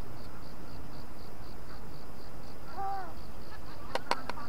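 Insects chirping in a steady, even pulse, about four pulses a second, with a brief faint voice about three seconds in and three sharp clicks near the end.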